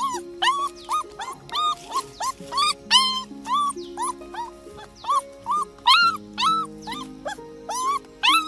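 A puppy crying in short, high, rising-and-falling whines, about three a second, over background music with sustained chords.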